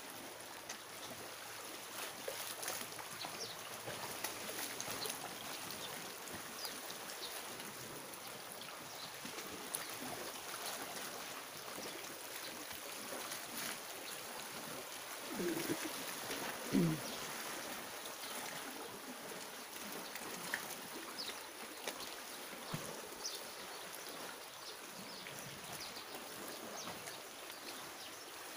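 Steady wash of calm sea water lapping against shore rocks. A brief, low call sounds once about sixteen seconds in.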